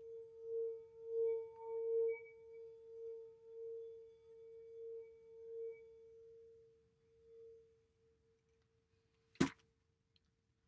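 Singing bowl ringing with one steady, wobbling tone that fades away over about seven or eight seconds. A single sharp click comes near the end.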